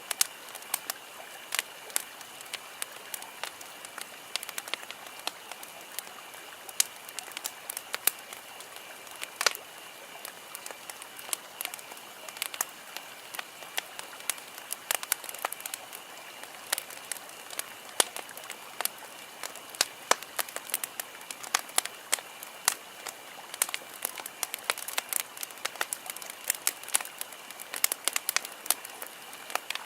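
Wood campfire crackling: irregular sharp pops and snaps over a steady hiss, coming a little thicker near the end.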